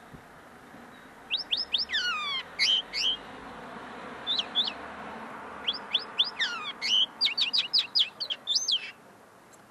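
Common linnet singing: fast twittering runs of high notes with quick downward slides, starting about a second in, breaking off briefly near the middle, then a longer run. The owner says the song is not yet fully clear in its notes, still being worked out.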